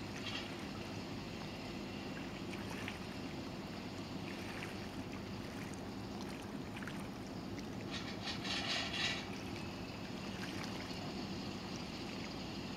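Steady low outdoor rumble, with a brief, rapidly pulsed high-pitched sound about eight seconds in.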